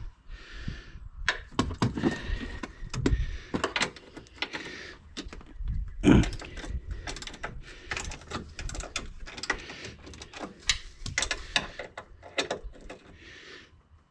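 Hand tools working a 13 mm bolt on a truck's front suspension: irregular metallic clicks, knocks and clinks, with a few short spells of rapid ratchet-like clicking.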